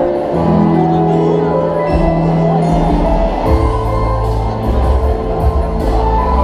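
Two pianos played together as a duet, with held bass notes under chords; the bass shifts lower about three and a half seconds in.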